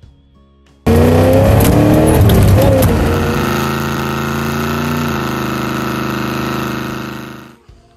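Car doing a burnout: the engine revs hard while the rear tyres spin on pavement. The sound starts abruptly about a second in, climbs and wavers in pitch, then holds steady at high revs before dying away near the end.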